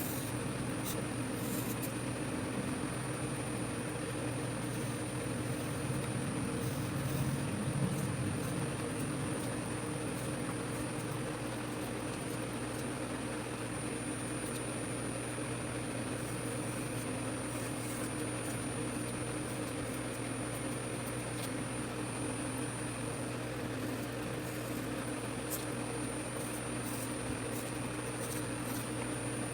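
Steady machine hum with a thin, high, constant whine, unchanging throughout, with a few faint clicks.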